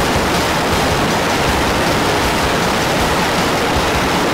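Jet fighter's engines running at full power on a carrier catapult just before launch: a loud, steady rushing noise that does not change.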